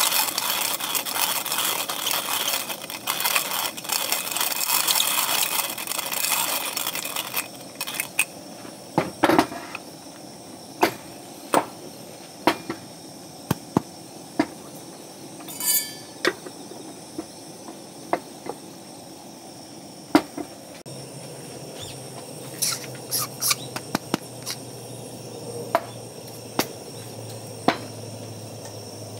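Hand-cranked coffee grinder crunching through beans for about seven seconds, then stopping. Sharp clicks and knocks follow as the grinder and the metal drip filter's parts are handled on a wooden table, with one short squeak. A low steady hum begins past the middle.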